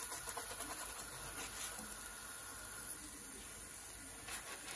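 Dhal puri roti frying in a little oil in a frying pan: a faint steady sizzle with a few light crackles.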